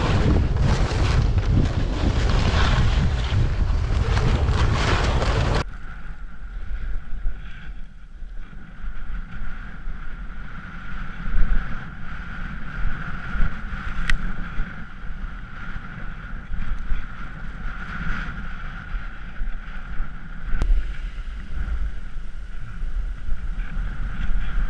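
Wind buffeting an action camera's microphone and a snowboard sliding and scraping over packed snow on a downhill run. About five and a half seconds in, the sound drops suddenly to a quieter, muffled rumble of the board running over snow with a faint steady whine.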